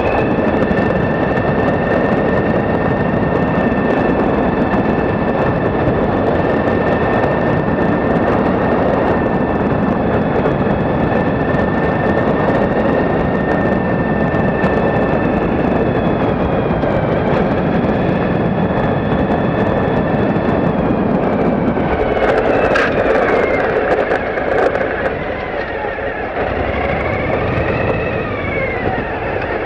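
Suzuki V-Strom 1000 motorcycle's V-twin engine running while riding, a steady whine over a constant rush. In the last few seconds the whine rises and falls in pitch as the revs change.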